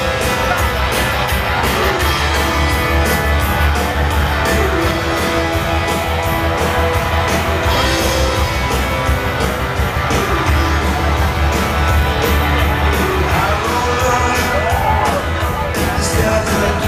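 Live rock band playing through a stadium PA, drums keeping a steady beat under electric guitar, with a lead vocal singing over it.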